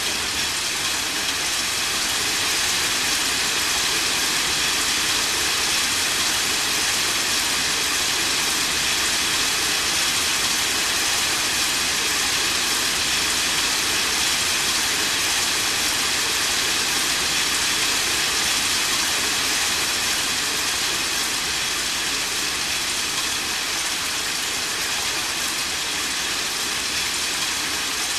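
Rain falling steadily, an even hiss without breaks or claps.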